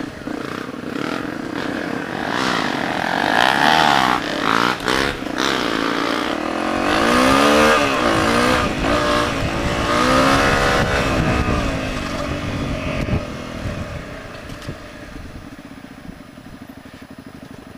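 Honda CRF250 trail bike's single-cylinder four-stroke engine revving up and down as it is ridden over rough trail, its pitch rising and falling again and again. In the last few seconds it settles lower and quieter.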